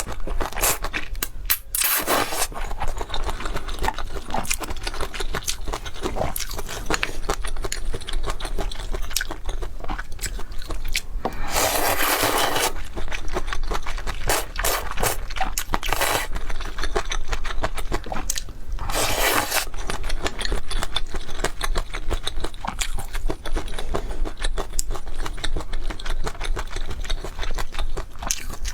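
Close-up eating of luosifen rice noodles with fried tofu skin: steady crunching and chewing with many small wet clicks, broken by a few louder noisy stretches about a second long, around the middle.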